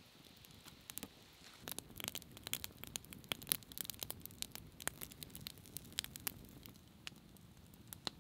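Campfire of kindling and split wood crackling, with many sharp, irregular snaps and pops that come thickest through the middle and thin out near the end.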